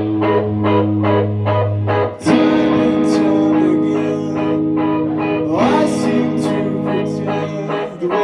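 A band playing a guitar-led rock song live: steady strummed guitar chords, with a chord change about two seconds in and a sliding note near the end.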